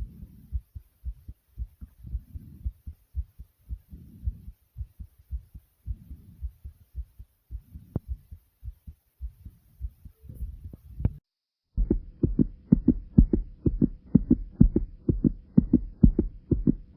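A human heartbeat racing after exercise, pounding in quick, even thumps. It drops out briefly about eleven seconds in and comes back louder.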